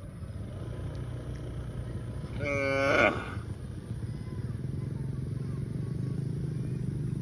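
A cow gives one short, rising moo about two and a half seconds in, over a steady low hum.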